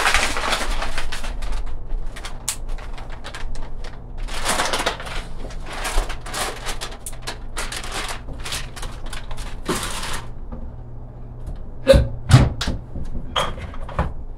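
Kitchen clatter of utensils and cookware: a run of quick scrapes and clicks for about ten seconds, then two louder knocks about twelve seconds in.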